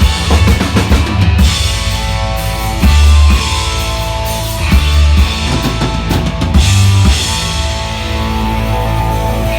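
Live band playing an instrumental passage with busy drum-kit fills, bass drum and snare over guitar and bass. The drums drop out about seven seconds in, leaving held guitar chords ringing.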